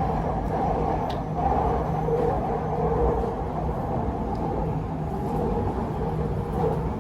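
Electric metro train of the MRT Purple Line running between stations, heard from inside the carriage: a steady rumble of wheels on rails with a low motor hum.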